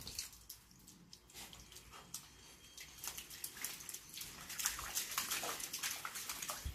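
Water lapping in a small paddling pool, with light scratches and rustles from a Jack Russell terrier's paws on the pool's rim and among leaves, growing busier in the second half.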